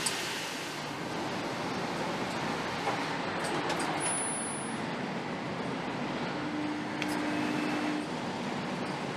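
Steady machinery noise from automated engine-assembly cells, with a few sharp clicks and a short steady low hum about two-thirds of the way through.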